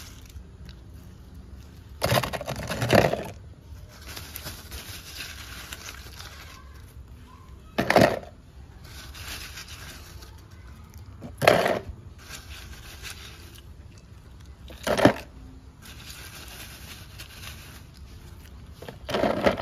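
Ice cubes dropped into a cut plastic drink bottle, each landing with a short clatter against the plastic. There is a longer rattle about two seconds in, then four single knocks a few seconds apart.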